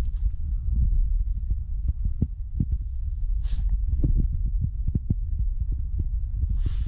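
Low steady rumble of wind on an action camera's microphone, with irregular soft knocks, and a French bulldog's short sniff close to the camera about three and a half seconds in and another near the end.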